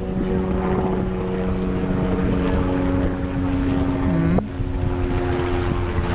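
Helicopter flying overhead: the low, fast beat of the main rotor under a steady engine whine.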